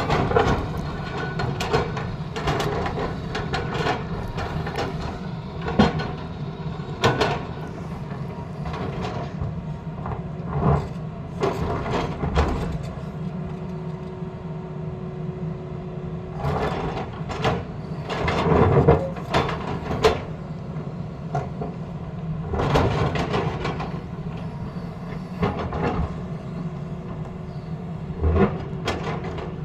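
Tata Hitachi excavator's diesel engine running steadily, with frequent metallic clanks and scrapes as it works.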